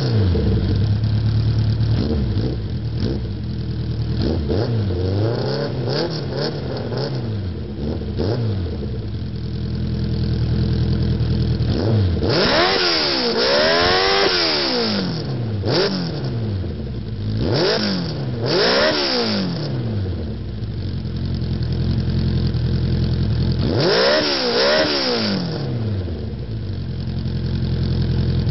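Suzuki GSX600F's inline-four engine running through a homemade exhaust, idling between repeated throttle blips that rise and fall in pitch. The longest, highest rev comes about halfway through, with a few sharper blips after it.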